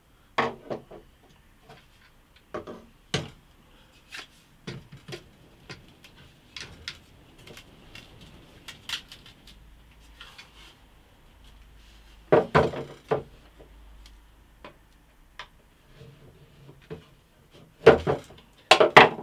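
Wooden drawer panels knocking and clicking together as they are handled and pushed into their snap-together latch fittings: a scatter of sharp knocks, with louder clatters about twelve seconds in and again near the end.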